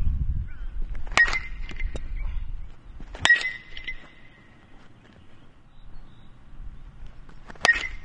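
Metal baseball bat hitting pitched balls three times: about a second in, just past three seconds, and near the end. Each hit is a sharp ping with a brief ringing tone.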